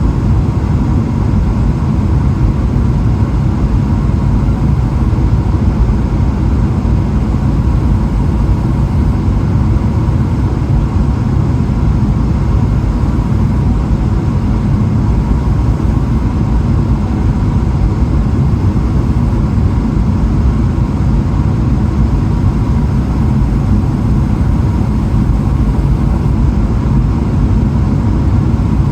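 Steady cabin noise inside a Boeing 777-300ER: an even low rumble of the GE90 engines and airflow past the fuselage, with a faint steady tone above it.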